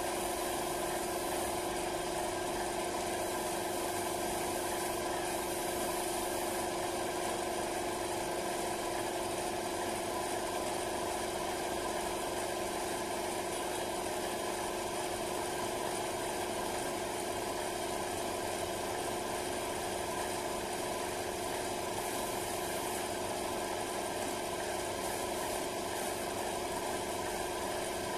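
Air compressor running steadily with a constant hum, supplying a paint spray gun, whose hiss comes in a few short bursts: at the start, about five seconds in, and again near the end.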